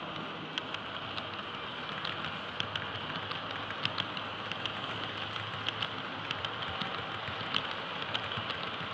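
Model train running on a miniature railway track: a steady rolling rush with many small, irregular clicks.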